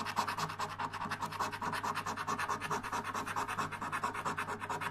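A coin scraping the silver coating off a Money Multiplier scratchcard in quick, even back-and-forth strokes, about eight a second.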